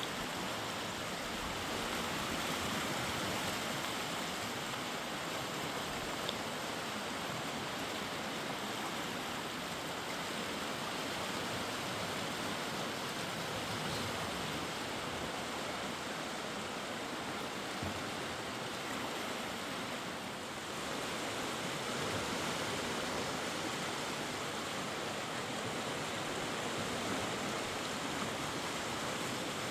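Mountain river flowing: a steady, unbroken rush of water.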